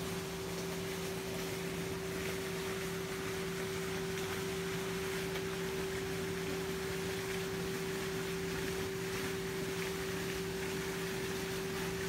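A steady, unchanging low machine hum over an even background hiss.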